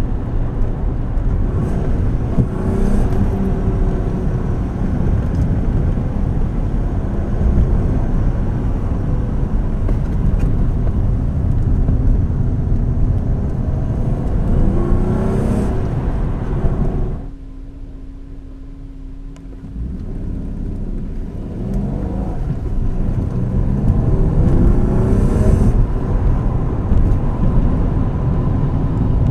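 Mk2 Golf's 24-valve VR6 engine pulling under load, the revs rising several times as it accelerates. For a few seconds in the middle it drops back to a quieter, steady low hum, then picks up and climbs again.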